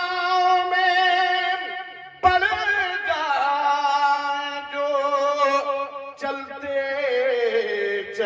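A man singing an Urdu naat into a microphone, drawing out long held notes that glide between pitches, with a brief break for breath about two seconds in.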